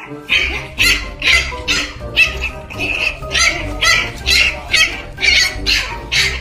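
Background music with a steady beat, with a puppy barking and yapping over it.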